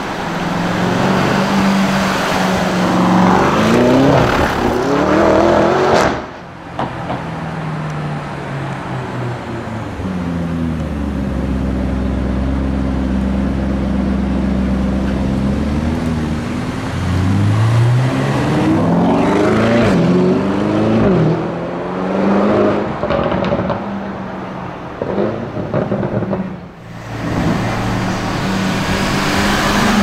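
Lamborghini Urus twin-turbo V8 engines pulling away in several short cut-together passes, revs rising again and again through upshifts. In the middle the engine runs steadily at low revs with a deep rumble before building up again.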